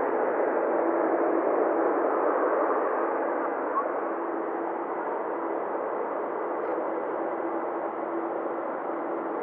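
Steady hiss of an air-band radio channel between air traffic control transmissions, with a faint hum that comes and goes.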